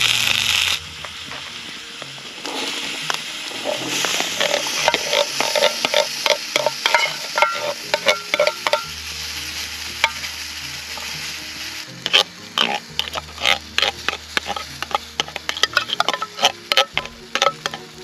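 Tomato sauce sizzling in a pot on a hobo wood stove while a spoon stirs it, with many short clicks and scrapes of the spoon against the pot. A louder hiss fills the first second.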